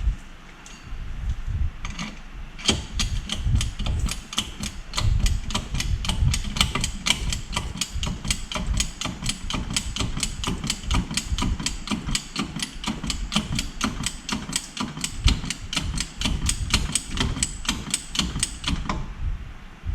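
Steady run of rapid ratchet clicks, about five a second, starting a couple of seconds in and stopping near the end: a ratcheting tool being worked back and forth, likely to raise the jack under the suspension.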